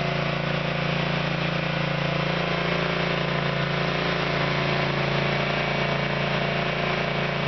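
Honda GX670 V-twin gas engine of a Diamond Products CB24H hydraulic power unit running steadily at a constant speed.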